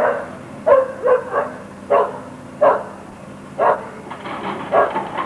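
A dog barking over and over, about nine short barks at uneven spacing, over the steady hum of a hydraulic excavator's engine.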